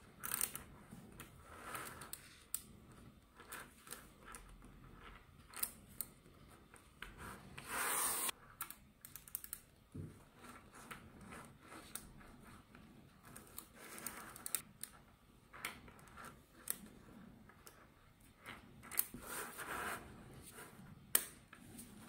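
Small gold-coloured neodymium magnet balls clicking and snapping against each other as a chain of them is handled and folded into a flat sheet on a tabletop: irregular sharp clicks, with a couple of longer rattling runs.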